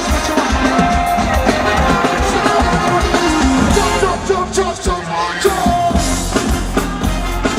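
Live reggae-dancehall band music with a vocal line over bass and drums. A little past halfway the bass drops out for about a second and a half, then comes back in.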